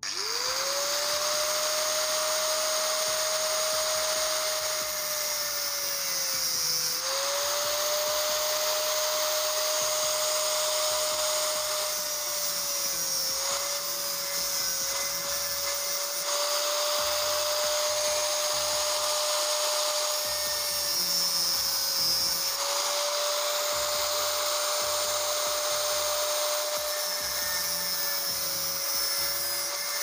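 Angle grinder with a thin cutting disc spinning up and cutting notches into a small steel pipe bushing held in a vise. A steady high whine runs over a hissing grind, its pitch sagging briefly a few times as the disc bites into the metal.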